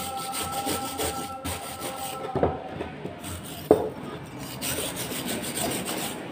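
Repeated abrasive scraping strokes on a gas stove part being worked by hand, with two sharp knocks about two and a half and nearly four seconds in.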